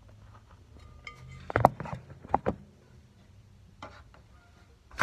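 A few sharp knocks and clinks: the phone being handled and set down on a kitchen counter beside a bowl. The loudest knock comes about a second and a half in, with two more just after it.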